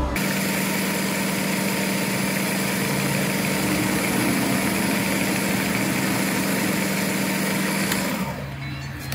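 A small power tool's motor running steadily with an even hum, stopping about eight seconds in.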